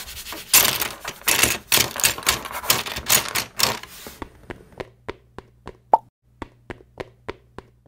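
Plastic LEGO pieces clattering: a dense run of sharp knocks for about four seconds, then single clicks about three a second, with a short ping about six seconds in.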